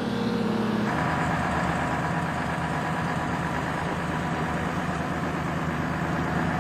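AGTruck farm truck's engine running steadily as the truck drives slowly past. The note shifts about a second in, then holds even.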